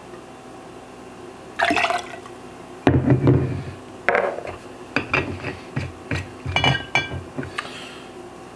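A shot of liquor poured from a bottle and glassware handled: a short pour, then a heavy knock about three seconds in and a string of glass knocks and clinks, one ringing briefly near the end.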